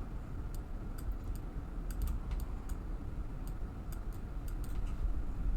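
Irregular clicking of a computer keyboard and mouse during design work: scattered single clicks and short runs of keystrokes, over a steady low hum.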